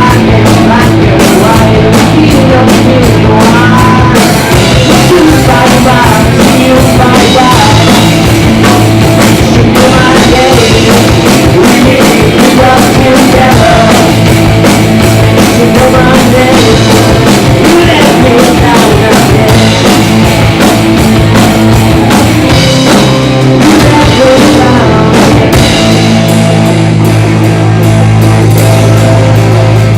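Garage rock band playing live, with a drum kit, very loud throughout. Near the end the bass settles onto a steady low note.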